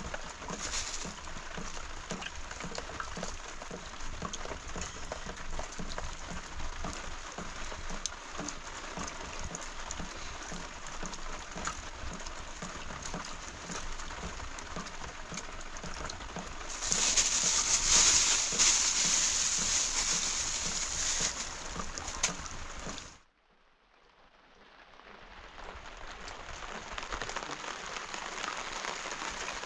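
Rain falling, a steady patter of drops that grows louder about two-thirds of the way through, then cuts off suddenly and slowly fades back in.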